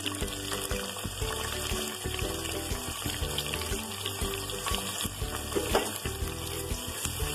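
Sliced onions frying in hot oil in a pressure cooker: a steady sizzling hiss, over background music.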